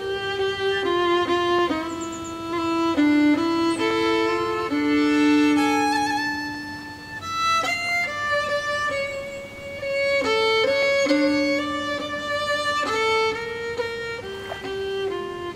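A violin duet playing a slow tune of long held notes, the two parts sometimes sounding together.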